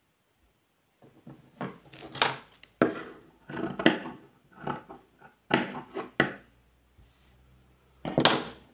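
Fabric pieces being handled and cut with scissors on a wooden table: a run of short rustles and scrapes starting about a second in, a short pause, then one more near the end.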